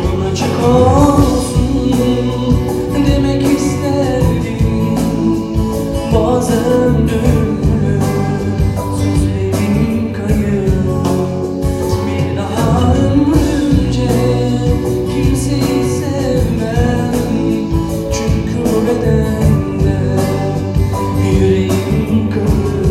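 Man singing a Turkish pop song into a handheld microphone over instrumental accompaniment.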